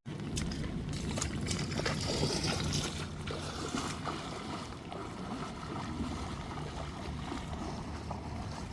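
Moving floodwater with a steady low rumble under it.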